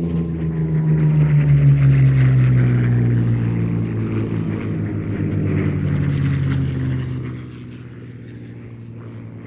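Merlin V-12 piston engine of a Second World War fighter flying a low pass. It is loud and its pitch falls steadily as the aircraft goes by. The sound is loudest about two seconds in and drops away at about seven seconds.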